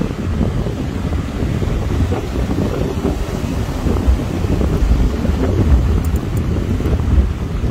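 Wind buffeting the microphone over the steady wash of ocean surf breaking on a sandy beach, heard as a constant low rumble.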